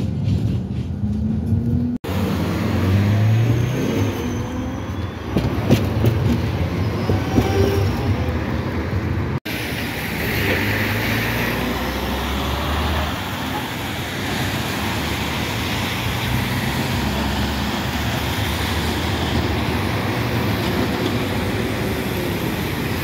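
A Bombardier Cityrunner tram running close past on its rails, with clicks and a few squeals. This is followed by street traffic, a lorry and cars driving past on a wet road.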